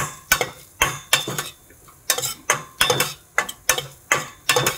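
Metal spoon scraping and clinking against the bottom and sides of a stainless steel pressure cooker while stirring spice powders into sautéed onions: quick repeated strokes, about three or four a second, with a short pause about one and a half seconds in.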